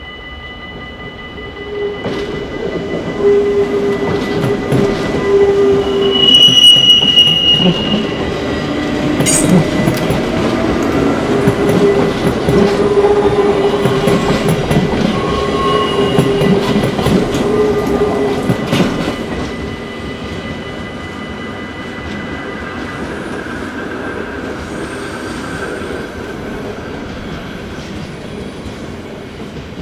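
NS passenger trains passing over a level crossing, wheels clattering over rail joints and squealing, loudest from about 2 to 19 seconds, then a quieter train going by. The crossing's warning bell rings steadily underneath and stops a little after the middle.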